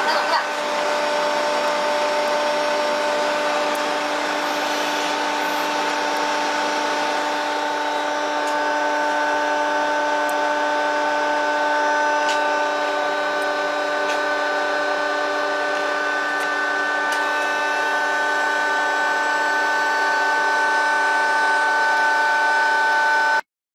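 Steady machine whine, a constant drone with several fixed pitches over a hiss, that cuts off suddenly near the end.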